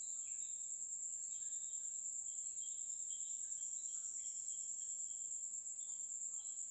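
Quiet background with a steady high-pitched whine and faint hiss, and a few faint, scattered short chirps.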